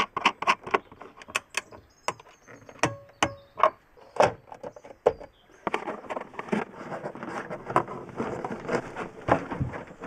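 Hands handling electrical cables and metal bolt terminals: a run of small clicks and knocks, then from about halfway a denser stretch of rustling and scraping as wires are fed through.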